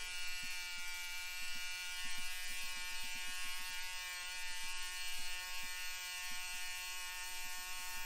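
Walk-behind power trowel's small gasoline engine running steadily as it is worked across a setting concrete slab: a constant buzzing drone.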